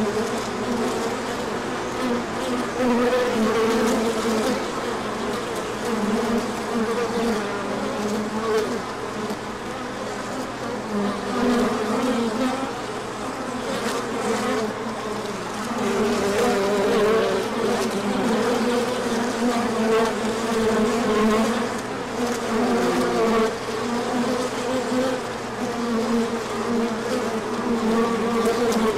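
Honey bees buzzing at the hive: a continuous wavering hum that swells and dips in loudness.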